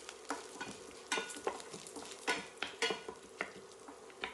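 Coriander seeds and lentils being stirred while they dry-roast in a little oil in a pan: faint, irregular scraping strokes with a light sizzle.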